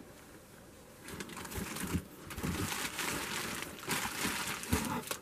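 Plastic air-pillow packing and a flannel blanket rustling and crinkling as a wrapped doll is pressed down into a cardboard box, starting about a second in, with a few soft bumps.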